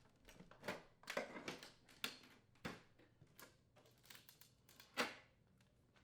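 Light, irregular clicks and knocks of an oven door's inner and outer panels being handled and pulled apart, the loudest knock about five seconds in.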